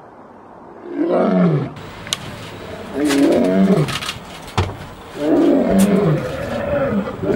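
Male lion roaring: a series of deep moaning calls, each falling in pitch, starting about a second in and repeating roughly every two seconds.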